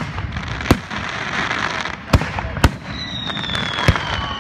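Aerial fireworks bursting: five sharp bangs at uneven intervals over a steady hiss. About three seconds in, a long whistle falls slightly in pitch, with small crackles around it.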